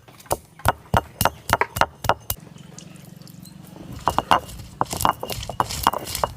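A run of sharp knocks and clinks, about three a second, then a low steady hum with more scattered knocks near the end.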